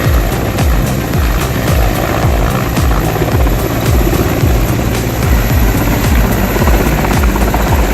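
Helicopter running, its main rotor beating in a steady, rapid rhythm.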